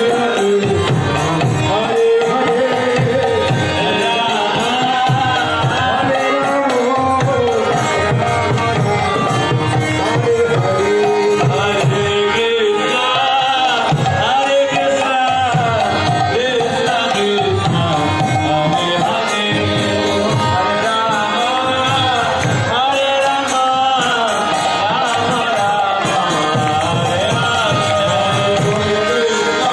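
Live devotional kirtan: voices singing a chant to a steadily played hand drum, without a break.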